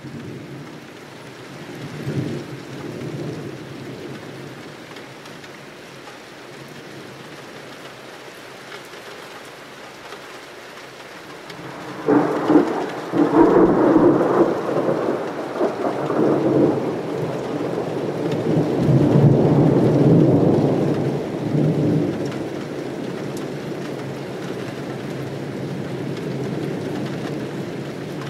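Steady rain with thunder: a small rumble about two seconds in, then a loud thunderclap about twelve seconds in that rolls on for some ten seconds before dying back into the rain.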